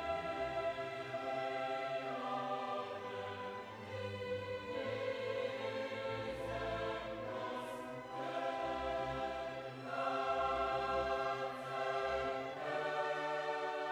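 Background music: slow choral and orchestral music with sustained chords that change every couple of seconds.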